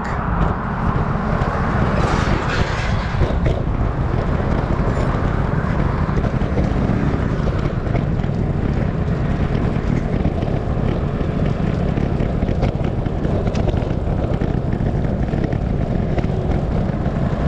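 Steady rushing noise of riding a bicycle on a sidewalk beside road traffic: traffic rumble mixed with wind on the microphone, swelling briefly about two seconds in.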